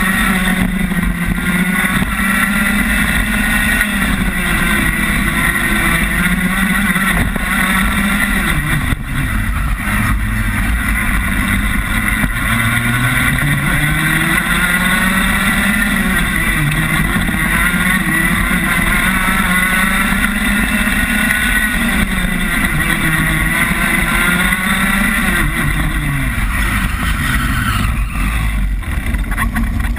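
Rotax Max 125cc two-stroke kart engine heard onboard at racing speed. Its pitch rises and falls over and over as the kart accelerates and lifts off for corners.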